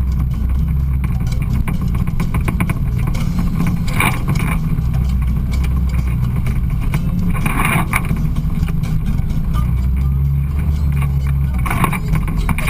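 Side-by-side UTV engine running steadily over a rough trail, a low rumble with light rattling. Brief higher-pitched sounds break through about four and eight seconds in and near the end.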